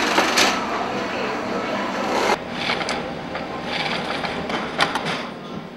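Industrial sewing machine running as it stitches denim, a dense mechanical whir with clicks, which cuts off abruptly a little over two seconds in. After that comes the lighter running noise of a sewing room, with scattered clicks.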